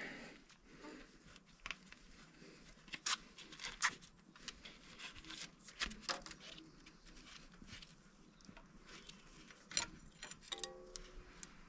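Faint scattered clicks and scrapes of a gloved hand working the threaded dipstick out of a diesel tractor engine's block to check the oil.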